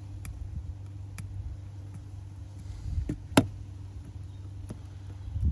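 Light clicks and taps of small repair tools working inside an iPhone, with one sharper click about three and a half seconds in, over a steady low hum.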